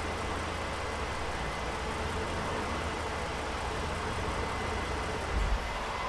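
1992 Dodge Stealth's 3.0 V6 engine idling steadily; the car came in for a rough idle that the mechanic puts down to a faulty engine computer. A single dull thump about five and a half seconds in.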